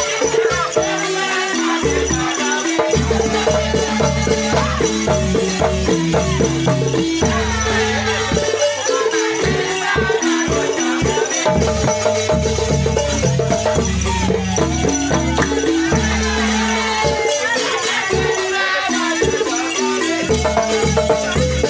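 Dance music with shaker rattles, singing and a repeating stepped bass line, playing steadily.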